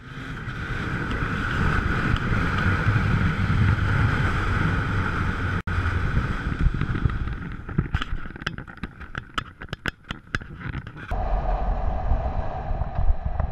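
Honda CBR929RR sport bike's inline-four engine running under wind noise on the microphone as the bike rides and slows. There is a run of sharp clicks and knocks about two-thirds through, and the sound changes abruptly near the end.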